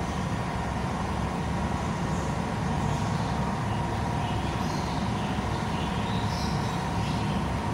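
Steady mechanical hum with a low rumble and a constant tone, unbroken throughout.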